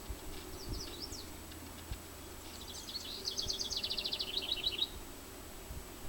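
A small songbird singing: a few short high chirps about half a second to a second in, then a fast, high trill of rapidly repeated notes lasting about two seconds, ending near five seconds.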